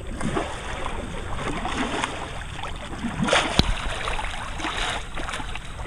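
Swimming-pool water sloshing and splashing, churned into waves by a person moving through it, heard close at the water's surface. A sharp knock sounds about three and a half seconds in.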